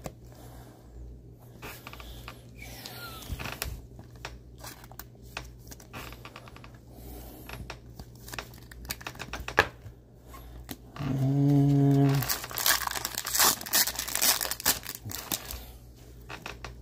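Trading cards and a rigid clear plastic toploader handled with gloved hands: rustling and crinkling with many small clicks and taps, much louder for a few seconds after the middle. Just before that loud stretch comes a brief low steady hum lasting about a second.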